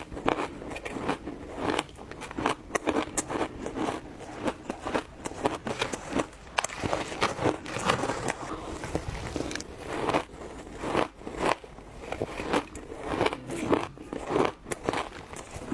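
Close-miked crunching of hard ice being bitten and chewed: many irregular sharp cracks, several a second.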